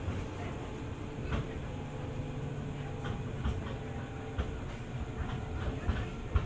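205 series electric multiple unit running, heard from inside the car: a steady low rumble with a faint hum, and short knocks every second or so at uneven spacing as the wheels run over rail joints.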